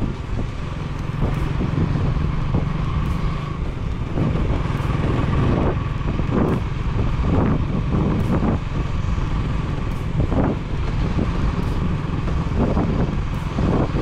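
Motor vehicle driving along a road: steady engine and road rumble, with some wind on the microphone.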